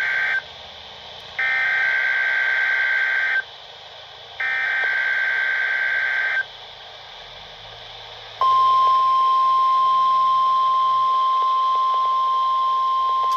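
NOAA Weather Radio alarm test tones. The end of one SAME data burst, then two more bursts of warbling digital tones, each about two seconds long with a second's gap between them. About eight seconds in, the steady 1050 Hz warning alarm tone starts and holds, all over a light radio hiss.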